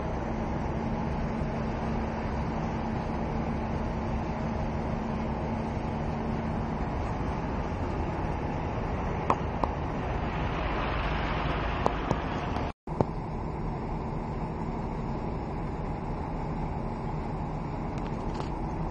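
Steady low rumble and hum of a ship's engine machinery mixed with rushing noise during berthing, with a few faint clicks and a swell of rushing around the middle; the sound cuts out for an instant just before the end of that swell.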